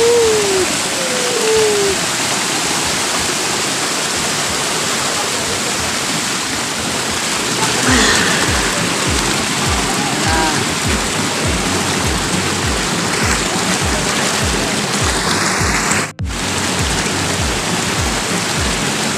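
Spring water rushing down concrete cascade steps and gushing from outflow pipes into a pool, a steady hiss of falling water. From about eight seconds in, background music with a steady beat plays over it. The sound cuts out for an instant near the end.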